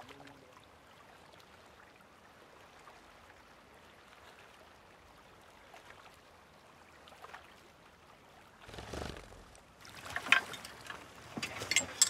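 Faint lapping of lake water around a small boat, then a short rush of water about nine seconds in, followed by a string of sharp knocks and clinks, the loudest about ten seconds in.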